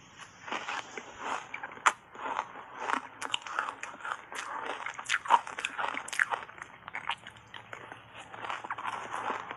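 Close-miked biting and chewing of shaved ice coated in matcha powder, taken in big spoonfuls: a dense, irregular run of sharp crunches.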